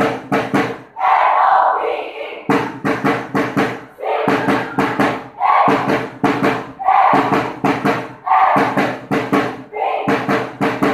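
Cheerdance music driven by drums: quick volleys of drum hits, each followed by a short burst of group shouting and crowd cheering, repeating about every one and a half seconds.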